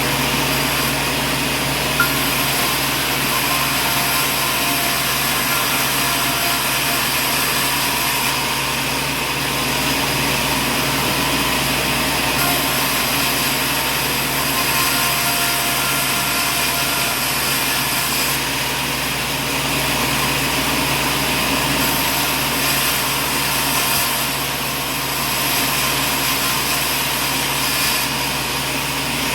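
Machinery running steadily, a constant motor hum and whine, with one sharp click about two seconds in.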